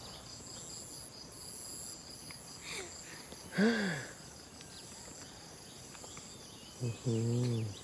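Chorus of insects in the vegetation: several steady, high-pitched tones held without pause. Two brief wordless voice sounds break in, one a little before the middle and a louder one near the end.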